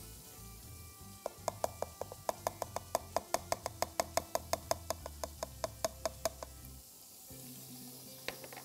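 A spice jar tapped quickly and lightly against the rim of a food-chopper bowl to shake dried ground spice into it, about five ringing taps a second for some five seconds. Two more clicks come near the end.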